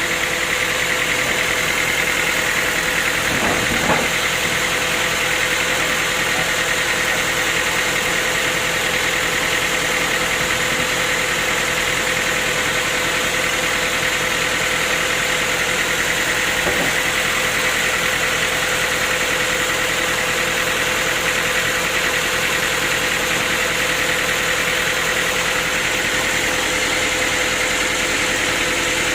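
Sawmill machinery running steadily: a constant mechanical hum with a high whine over it, with a brief knock about four seconds in and another about seventeen seconds in.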